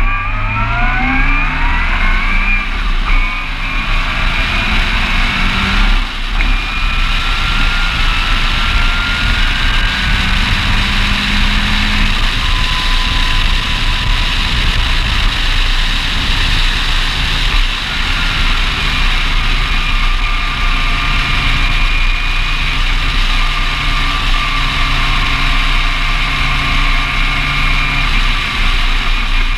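Ginetta G20 sports car's engine heard from its open cockpit at speed, revving up through the first few seconds and then running steadily, with a slower climb in pitch a little later, under heavy wind rush on the microphone.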